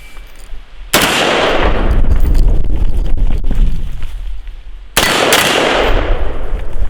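Two gunshots on a timed shooting drill, about a second in and again about four seconds later. Each is followed by a few seconds of loud rumbling noise.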